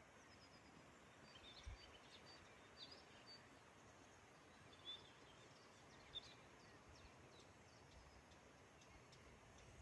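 Faint birds chirping: scattered short, high calls over a near-silent background hiss.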